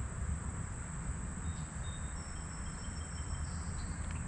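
Creek-side outdoor ambience: a steady low rumble and hiss, with faint thin high insect tones coming in and out about midway.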